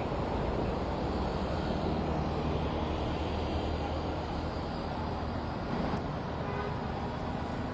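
Steady street traffic noise from motorcycles, scooters and auto-rickshaws running along a flooded road.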